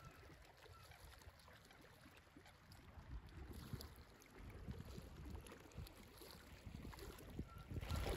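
Faint wind and lake water lapping against a rocky shore, growing louder near the end.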